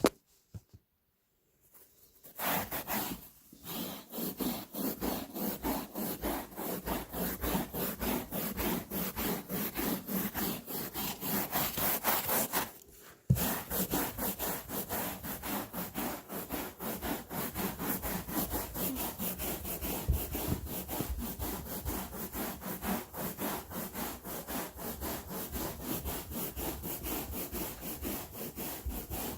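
Carpet scrubbed back and forth by hand with a brush, about two to three strokes a second, working a sprayed-on pretreatment into a stain. The scrubbing starts about two seconds in, stops for a moment about halfway through, and then carries on.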